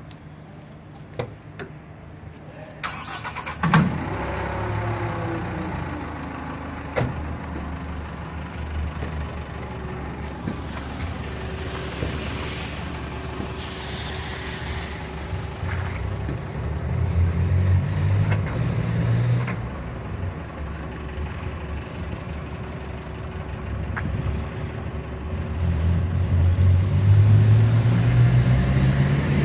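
Tow truck engine starting about three to four seconds in, then running steadily. Its pitch rises twice, around the middle and again near the end, as it drives the unloaded hydraulic underlift.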